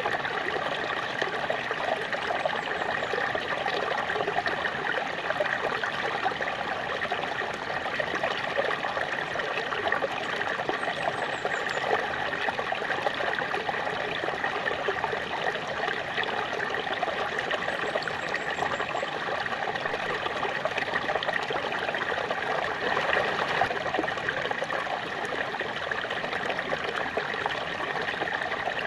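Small waterfall splashing and rushing steadily, an even, unbroken water noise.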